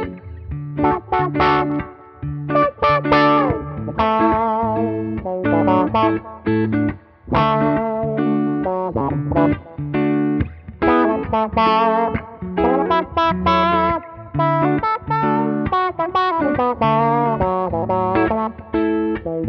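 Two electric guitars playing together, picked notes and chords, some notes sweeping upward in tone as they are struck, in the manner of an envelope filter (auto-wah).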